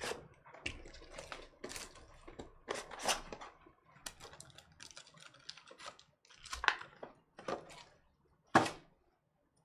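Irregular light clicks and taps, several a second and uneven, with one sharper, louder click near the end.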